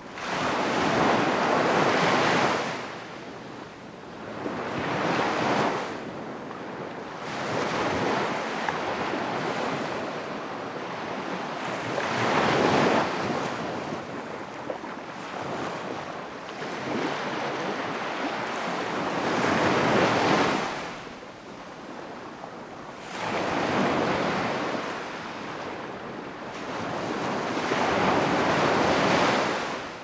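Ocean surf: waves breaking and washing in, seven or so surges that each swell up and fall away over a few seconds, with a lower steady wash between them.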